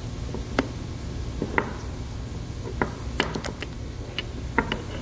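Scattered light clicks and taps as a brass Stirling engine power cylinder is handled and its tape is pulled loose, over a steady low hum.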